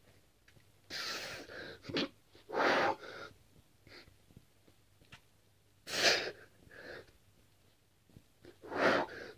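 A man breathing hard through push-ups: short, forceful, noisy exhalations and gasps, about four strong ones a couple of seconds apart with fainter breaths between.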